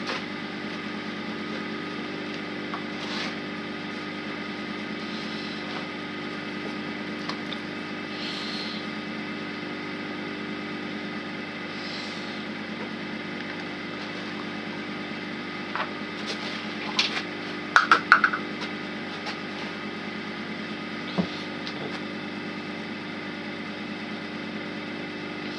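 Wood lathe running steadily with a steady motor hum as a pen blank spins on the mandrel. A few short clicks come about two-thirds of the way through.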